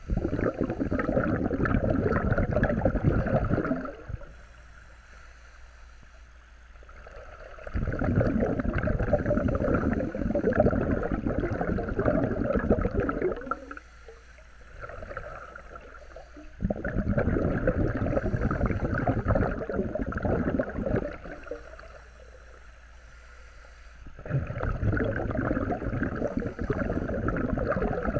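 Scuba regulator breathing heard underwater: four long bubbling exhalations a few seconds each, with quieter hissing inhalations between them.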